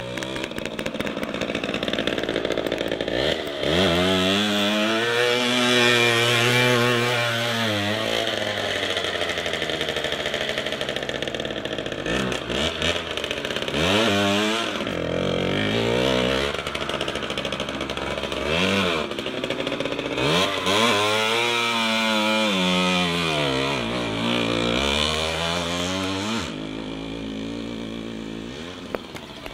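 Small two-stroke motorcycle engine running and revving, its pitch sweeping up and falling back several times.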